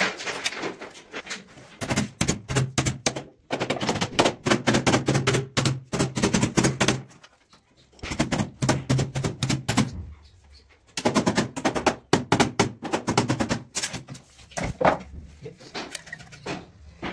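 Carpentry work on a wooden cupboard: rapid knocking and clattering in several runs of a few seconds each, with brief pauses between them and a low hum under the longer runs.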